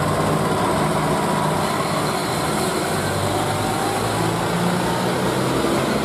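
Large off-highway mining dump truck's diesel engine running with a steady low drone as the truck drives past close by.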